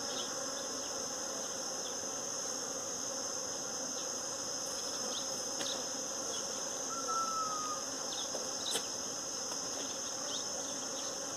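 Many honeybees and native bees buzzing steadily as they forage on a blossoming tree, a dense swarm hum. A steady high-pitched tone runs above the buzzing, and a short falling whistle comes about seven seconds in.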